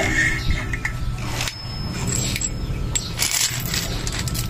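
Steel parts of a press-fit bearing puller and a sealed hub bearing clinking against each other as they are handled and taken apart: a few light metallic clicks and one brief high ring.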